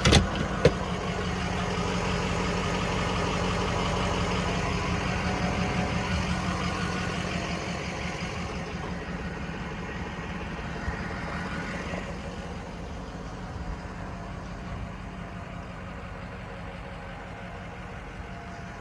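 Ford 6.0 Power Stroke V8 turbo-diesel idling steadily, its hum growing gradually quieter over the last several seconds.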